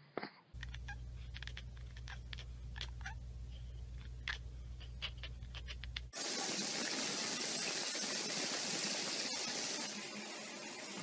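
Tap water running hard into a bathtub, starting suddenly about six seconds in and dropping slightly in level near the end. Before it, a steady low hum with short, high chirps.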